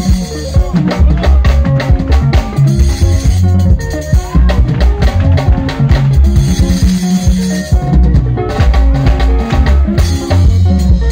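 Live sungura band playing loudly: electric guitars over a bass line and a busy drum kit.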